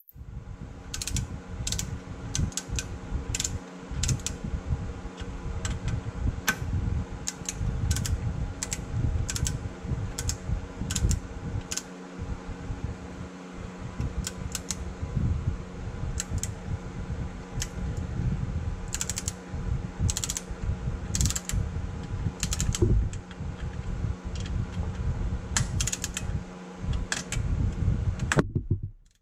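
Torque wrench ratcheting on skid-plate bolts, with many irregular sharp clicks as the bolts are run down and tightened. A steady mechanical hum runs underneath.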